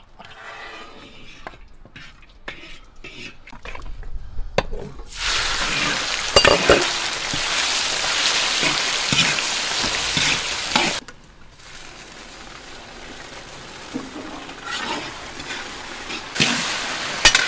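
Cubed pork belly sizzling in hot oil and caramelizing rock sugar in a large wok, stirred with a metal ladle. The sizzle starts loud about five seconds in and drops off suddenly near eleven seconds. It then goes on more quietly with a few ladle scrapes and flares up again near the end.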